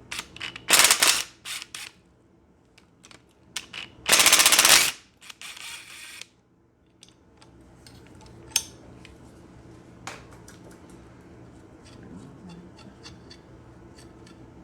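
Power impact wrench rattling in two short bursts, about a second in and about four seconds in, undoing the oil pickup tube bolts on a Datsun L18 engine, followed by scattered light clicks and clinks of tools and parts.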